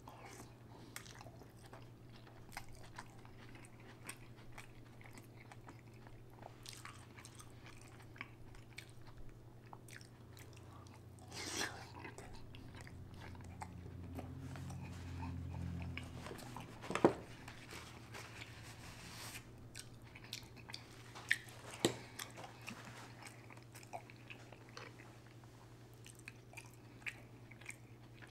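Close-miked chewing and eating of a seafood boil: small wet mouth clicks and smacks throughout, with a few sharper cracks, the loudest about 17 seconds in and two more around 21 to 22 seconds.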